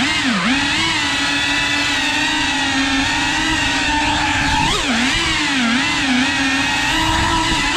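3.5-inch cinewhoop FPV drone's motors and propellers whining steadily, the pitch dipping and climbing back as the throttle eases and opens, once just after the start and a few times in quick succession about five seconds in.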